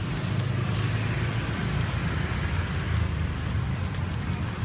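Hot oil sizzling in a steady hiss as fried sticky rice (xôi chiên) cooks in the pan. A steady low rumble of street traffic runs underneath.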